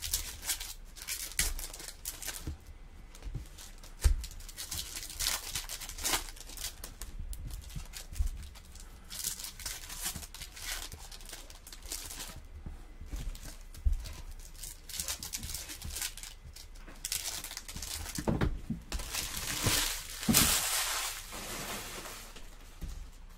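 Foil wrappers of Bowman's Best baseball card packs being torn open and crinkled, with cards handled and a few light knocks on the table. The crinkling is loudest near the end.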